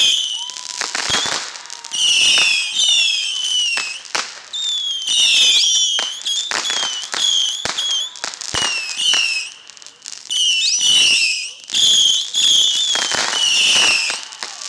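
A ground-launched consumer firework cake firing a rapid string of whistling shots: many short whistles that fall in pitch and overlap, with sharp pops and bangs among them. The firing eases off briefly near ten seconds, then picks up again.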